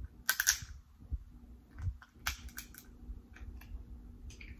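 Crab-leg shell cracking and crunching close to the microphone, with wet mouth clicks as the meat is bitten out. There is a quick cluster of sharp cracks a fraction of a second in, another cluster a little after two seconds, then scattered lighter clicks.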